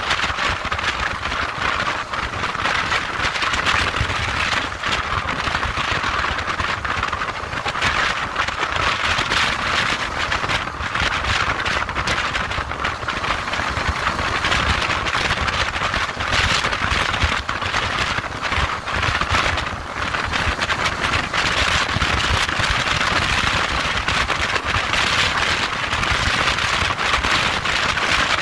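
Steady wind rush and low rumble from a motorcycle cruising at highway speed, heard from the bike's handlebar-mounted camera.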